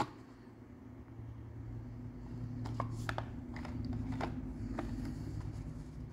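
Hot Wheels blister-packed cards being handled: a scattering of light clicks and taps from the cardboard and plastic packaging, clustered a few seconds in, over a low hum.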